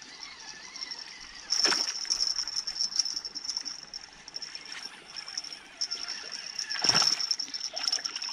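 A hooked young bream splashing at the surface as it is reeled in, with two sharp splashes, the first about a second and a half in and the second near the end, over a steady high chirring in the background.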